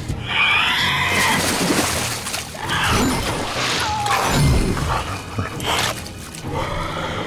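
Film horror-scene soundtrack: a woman screaming and heavy water splashing as a dinosaur attacks her in a lake, with shrieking creature cries and music underneath.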